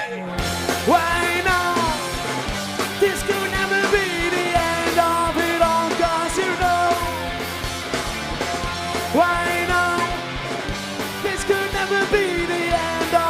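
Rock band playing live between sung lines: a steady drum and bass beat under a melody line of sliding, bending notes.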